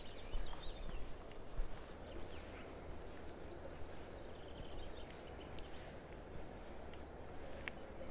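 Crickets chirping, one unbroken high-pitched trill, with a few faint bird chirps in the first second or so and a low rumble of wind.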